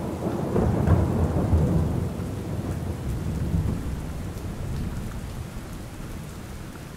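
Rolling thunder over steady rain, the rumble loudest about a second in and slowly fading away.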